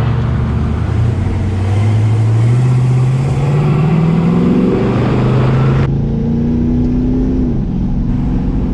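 First-generation small-block Chevy V8 in a 1949 Chevy 3100 pickup accelerating hard under load. The engine note climbs steadily in pitch, then eases off and drops back near the end.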